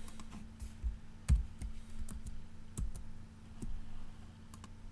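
Scattered, irregular clicks and taps from a computer keyboard and mouse, the loudest about a second in, over a low steady hum.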